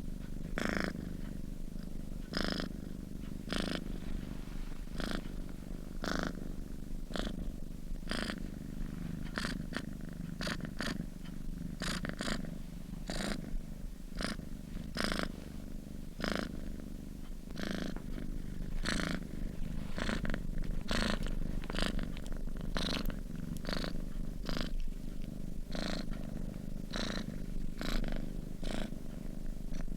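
Domestic cat purring steadily, a low continuous rumble with a breathy rasp that comes and goes in an even rhythm with each breath.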